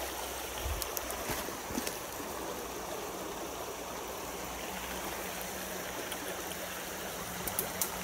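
Shallow mountain creek rushing steadily over rocks, with a few small clicks about a second in and again near the end.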